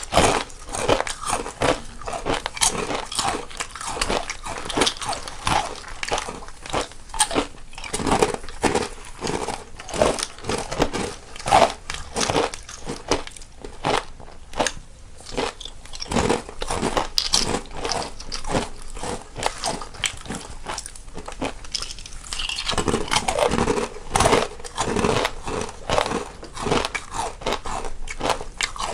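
Two people biting and chewing crunchy snacks, each on its own stereo side, in dense, irregular crunches several times a second.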